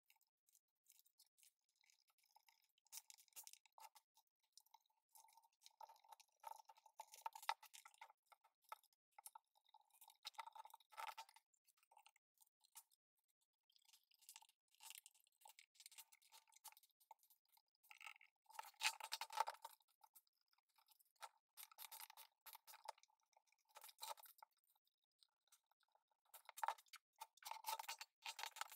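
Faint, scattered clicks, light knocks and scrapes of an old wooden toolbox being reassembled by hand: small metal hinges, latches and screws being handled and fitted, and the wooden lid and tray being moved. The knocks come in a denser, louder cluster a little before two-thirds through.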